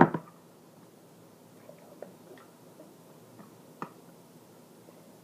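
Pull-tab lid of a metal evaporated milk can being worked open by hand: one sharp metallic pop at the outset, then a few faint scattered ticks as the tab and lid are pried at.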